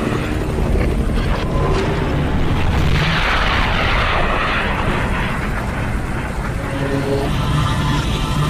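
Animated battle sound effects played backwards: a dense rush of jet and rocket-thruster noise over a steady low rumble, with a brighter hissing swell between about three and five seconds in.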